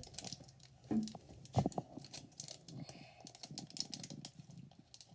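Close handling noises of slime-kit packets and plastic containers: rapid, irregular small clicks and crinkly rustles, with one louder knock about one and a half seconds in.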